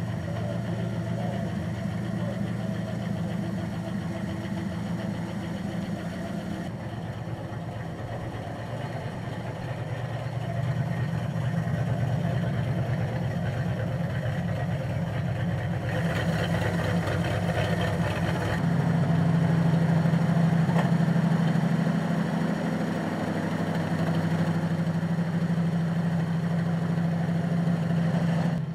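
Engine of a Plymouth industrial switcher locomotive running as it moves along the track, its note and loudness shifting a few times and rising a little about two-thirds of the way through.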